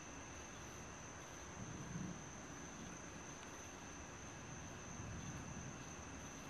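Night insects trilling steadily in one continuous high-pitched tone over faint background hiss. A faint low rumble swells about two seconds in and again around five seconds.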